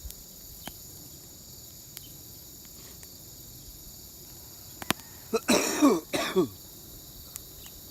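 A person coughs twice about five and a half seconds in, over a steady high chirring of insects.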